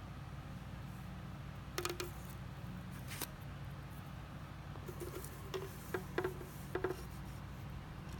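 Scattered small clicks and taps from a fishing hook and line being handled on paper, over a steady low hum.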